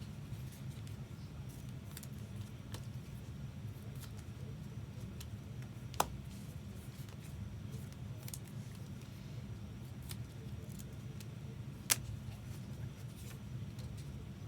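Trading cards being handled over a steady low hum, with fainter scattered ticks and two sharp clicks, about six seconds in and again near the end.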